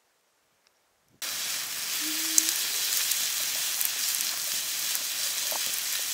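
Near silence, then about a second in a sudden start of pork sizzling on a hot stone slab over a wood fire: a steady hiss with small pops.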